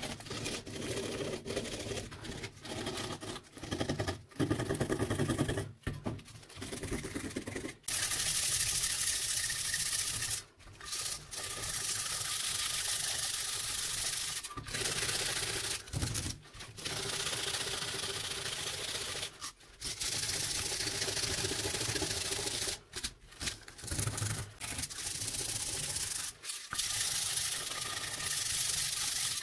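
Rusty steel trowel blade being sanded by hand, rubbed back and forth on sandpaper to take off the rust: a dry, scratchy hiss in strokes. The strokes are short and choppy at first, then turn into longer passes with brief pauses about a third of the way in.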